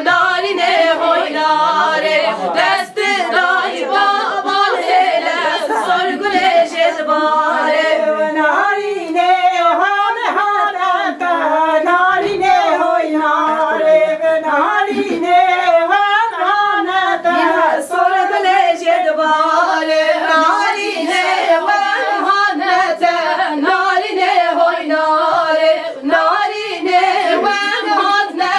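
Women singing a Kurdish folk song unaccompanied, with voices alone and no instruments, in a steady flowing melody.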